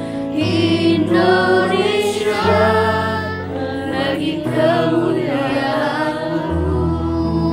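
A young mixed choir of girls and boys sings a slow song in Indonesian, over long held low notes that change pitch every two seconds or so.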